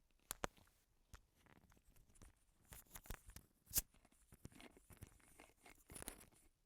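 Faint, scattered clicks and crinkles of a plastic soda bottle being handled and drunk from. The sharpest click comes nearly four seconds in.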